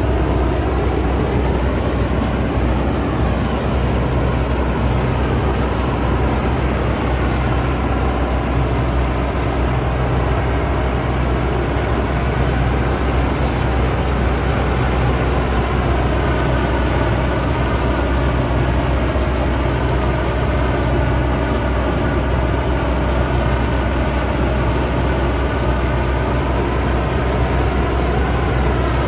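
Fortschritt E514 combine harvester running steadily while cutting: a constant heavy engine drone with machinery noise whose pitch wavers slowly.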